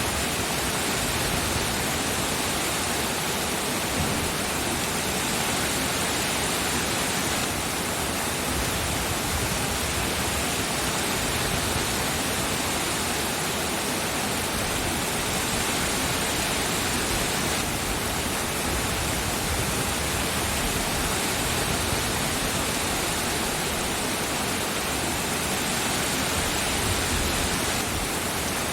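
Steady, dense rain, an even hiss with no breaks or single drops standing out.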